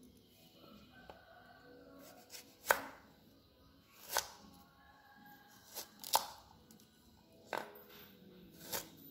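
Kitchen knife slicing through green bananas and knocking against a wooden cutting board: about half a dozen sharp knocks, roughly a second or more apart.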